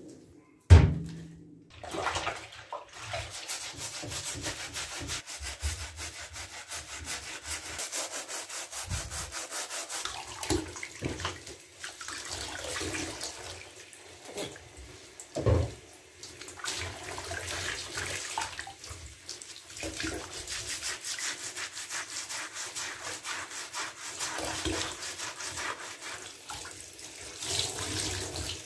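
Fluffy faux-fur slipper being hand-washed in a plastic basin of soapy water under a running bathtub tap: hands rubbing and squeezing the wet pile, with water running and splashing. A loud thump comes about a second in and another about midway.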